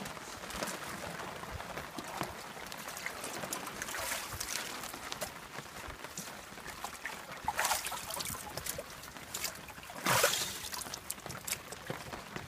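Water splashing and sloshing in a plastic tub as a two-year-old Kohaku koi is handled by hand in it, in irregular bursts, with one louder splash near the end.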